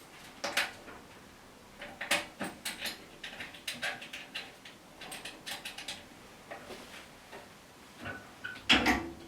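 Handling noise from a handpiece being fitted to a cosmetic treatment machine: scattered light plastic clicks, taps and rustles, with a louder knock near the end.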